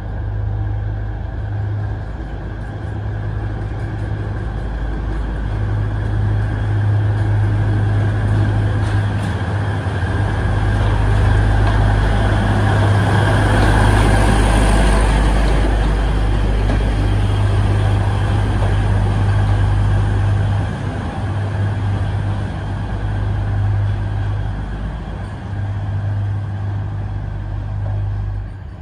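Alishan Forest Railway diesel shunting locomotive running with a steady low engine drone. It grows louder as it passes close by about halfway through, then eases off as it moves away.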